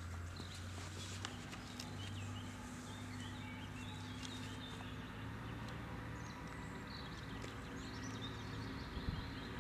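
Quiet outdoor ambience: faint bird chirps over a low steady hum, with a few light clicks of hands handling the cable and box.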